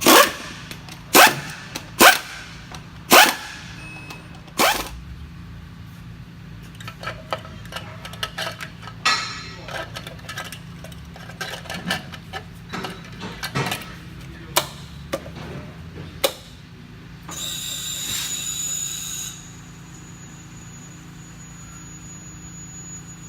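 A run of sharp knocks, five loud ones in the first five seconds, then lighter clicks and taps. About seventeen seconds in comes a hiss lasting about two seconds, and a thin high whine continues after it, over a steady low hum.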